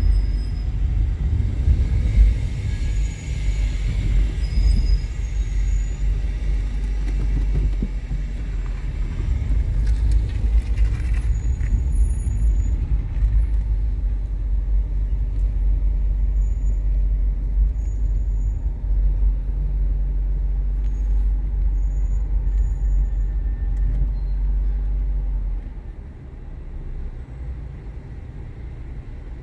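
Low, steady rumble of a car's engine and tyres heard from inside the cabin while driving; near the end the rumble drops off sharply as the car slows to a crawl in traffic.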